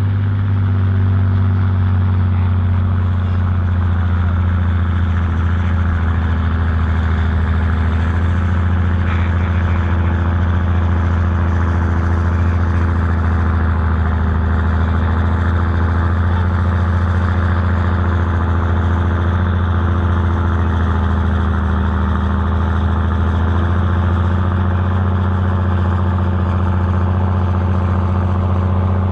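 Tractor engine running steadily at one constant speed, a low, even drone with no revving.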